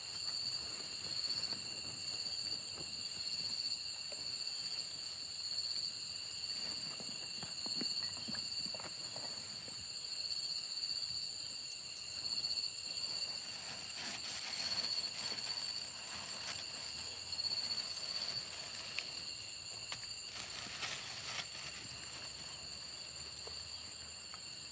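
A steady chorus of night insects at several fixed high pitches, with rustling of footsteps on dry leaves and of a backpack being rummaged through.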